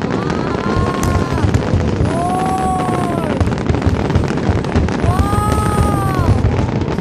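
Fireworks display: a steady run of crackles and shell bursts, with three whistling tones that rise and fall, each about a second long.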